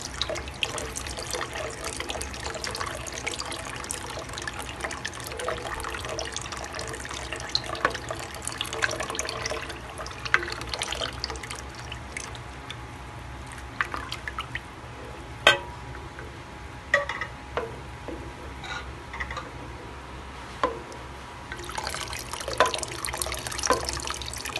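Creamy Alfredo sauce bubbling and popping in a pan while a ladle stirs it. The crackle is dense for the first half, then thins to scattered sharp clicks. A steady low hum runs underneath.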